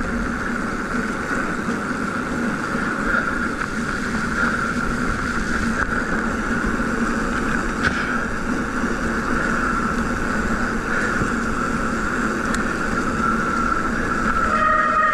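Specialized Fuse hardtail 29er mountain bike being ridden along a wet trail: a steady rolling hum of tyres and drivetrain, even throughout, with no big knocks or impacts.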